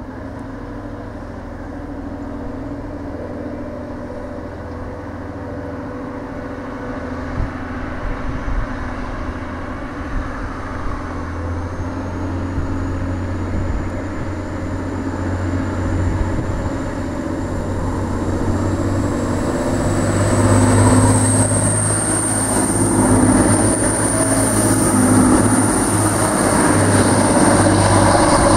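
Class 185 diesel multiple unit pulling away and passing close by. Its diesel engine note builds and grows louder, with a high whine that climbs steadily in pitch as the train gains speed.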